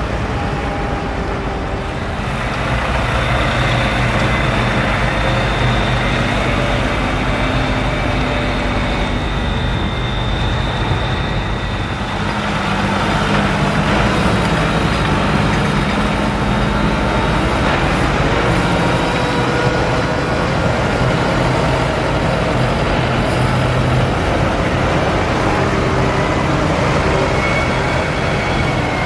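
Diesel engines of farm tractors running steadily as tractors drive slowly past one after another, including a New Holland 7840 and a John Deere. The drone shifts about twelve seconds in as a different tractor comes by.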